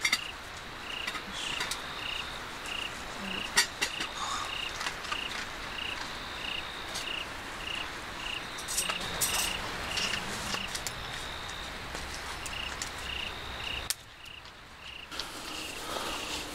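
A cricket chirping in an even rhythm, a little under two chirps a second, over a faint steady high trill, with a few sharp clicks and knocks along the way.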